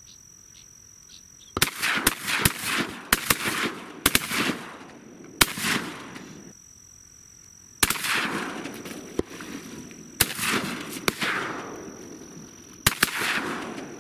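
Several shotguns firing at passing teal: a string of sharp shots over the water, about six loud blasts with smaller cracks between them, each trailing off in an echo.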